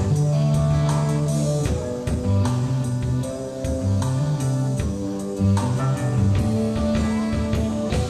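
Live rock band playing: electric guitar over a drum kit beat with a moving low-note line.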